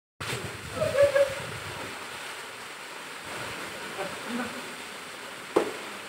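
Water spraying out of the rock wall of a newly dug well and splashing into the pool at its bottom, a steady rushing hiss. A voice calls out briefly about a second in, and a single sharp knock comes near the end.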